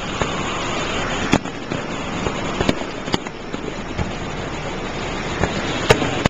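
Aerial fireworks going off: a handful of sharp bangs and cracks at irregular intervals over a steady hiss of background noise.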